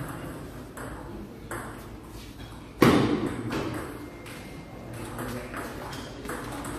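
Table tennis ball clicks in a rally, irregular sharp ticks echoing in a large hall, with one much louder thump near the middle.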